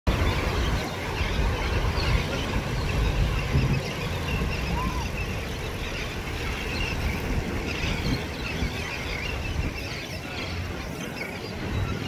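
Outdoor ambience: an uneven low rumble, strongest in the first half, with faint scattered bird chirps above it and a single short rising whistle about five seconds in.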